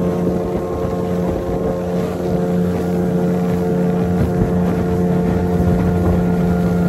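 Small boat's outboard motor running steadily at speed, one even engine note throughout, with hull spray and wind rushing over the microphone.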